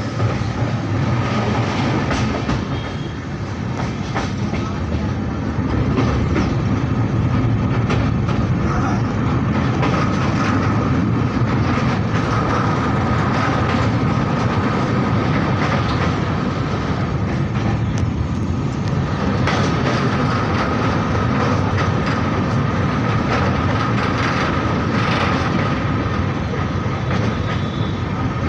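Train crossing an old iron railway bridge: a loud, steady rumble with wheels clacking over rail joints and a thin, steady whine above it. It grows louder about six seconds in.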